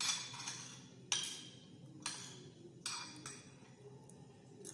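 Spoon and fork clinking and scraping against a plate, in five sharp strokes about a second apart, each fading quickly.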